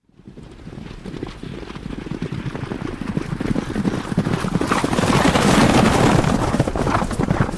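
A herd of horses stampeding: many rapid, irregular hoofbeats that swell louder to a peak about five to six seconds in, then ease slightly.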